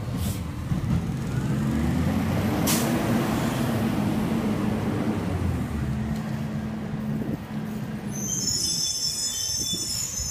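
Garbage truck engine running as the truck pulls away, a low drone whose pitch rises and then holds steady. Near the end come high-pitched brake squeals as the truck slows.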